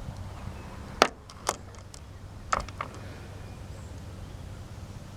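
A few short, sharp metallic clinks of sockets and hand tools being handled, four in all within the first three seconds, over a steady low hum.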